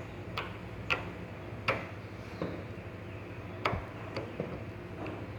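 Slime being squeezed and pressed by hand, giving off a handful of sharp, irregularly spaced popping clicks over a steady low hum.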